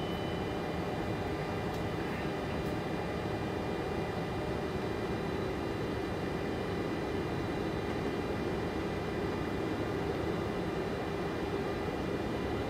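Steady hum and hiss inside a Boeing 747-400 flight deck on the ground, from the idling engines and the air-conditioning airflow, with faint steady high whines over it.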